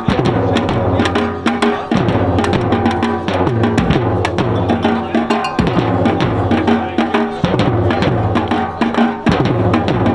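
A group of drummers beating large bass drums with padded mallets and smaller snare-type drums with sticks, in a fast, steady rhythm.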